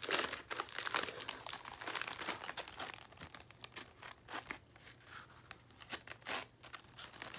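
Packaging being opened by hand: irregular crinkling and rustling of a wrapper, with some tearing. It is busiest for the first three seconds and then turns to sparser, fainter crinkles.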